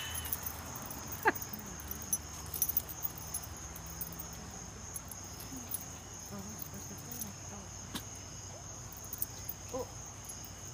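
A steady, high, even chirring of an evening insect chorus. A short squeak comes about a second in and another near the end, with scattered soft clicks.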